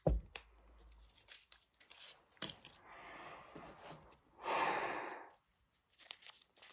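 A phone being wiped clean by hand: a knock as it is picked up, then scratchy rubbing with a louder rustling swipe about halfway through, as toothpaste smeared on it is wiped off.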